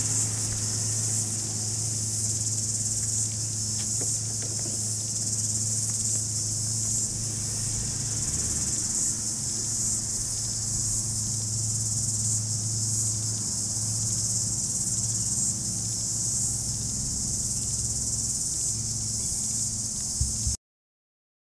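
A steady, high-pitched chorus of cicadas over a low steady hum, cutting off abruptly near the end.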